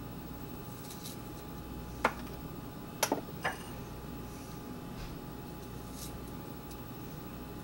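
Peeled garlic cloves dropped one at a time into a plastic tub of cut vegetables, making light knocks: one about two seconds in, a quick double about a second later, then one more. A faint steady hum runs underneath.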